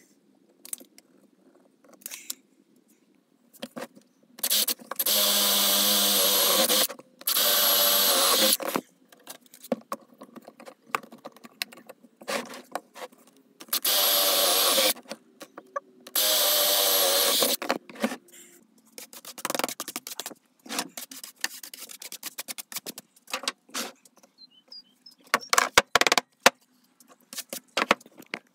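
Cordless brushless drill boring holes through the end of a wooden box: four steady runs of about two seconds each, in two pairs, with light clicks and knocks of handling between them.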